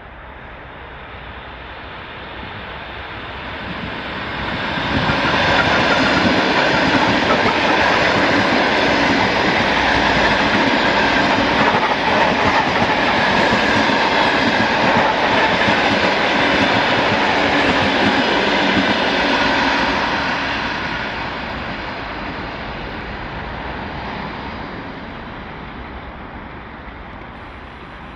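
A Russian suburban electric multiple unit (elektrichka) passing close by on the tracks. Its rail noise swells over the first few seconds, stays loud for about fifteen seconds as the cars go by, then fades away.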